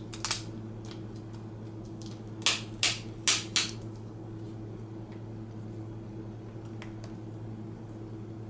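Four brief scratchy handling sounds in quick succession, about two and a half seconds in, from pulling the taped display cable up off the back of a laptop screen, over a steady low hum.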